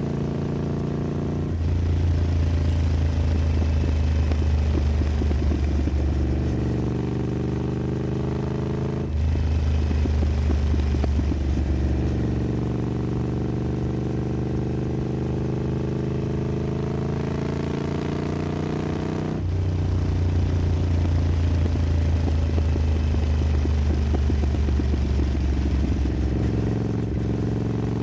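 Triumph Scrambler 900's parallel-twin engine through an aftermarket exhaust while riding. The note climbs steadily, then drops back and gets louder at a gear change; this happens three times.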